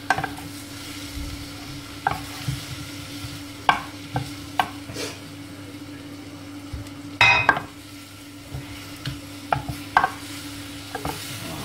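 Wooden spoon stirring hot roasted swede cubes in a ceramic roasting dish, scraping and knocking against the dish every second or so, the loudest scrape about seven seconds in, over a faint sizzle from the honey glaze on the hot vegetables. A steady low hum runs underneath.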